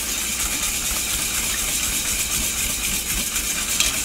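Wire whisk beating a thin mixture of canned cream soups and milk in a stainless steel bowl: a steady, rapid swishing and wet slapping, with the wires rubbing against the metal bowl.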